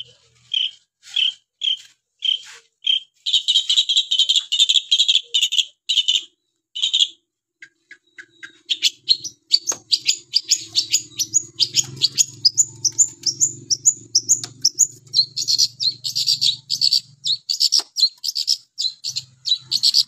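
Long-tailed shrike singing hard: a few short sharp chirps, then a run of harsh scratchy chatter, then after a brief pause a fast, varied stream of quick notes, some rising, that keeps going.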